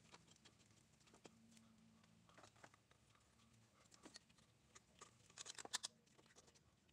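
Near silence with a few faint clicks and light handling sounds from alternator mounting bolts being started by hand, with a short cluster of clicks about five and a half seconds in.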